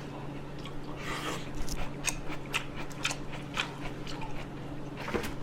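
A person chewing food close to a microphone clipped on his shirt: irregular mouth clicks, several a second, with pauses between.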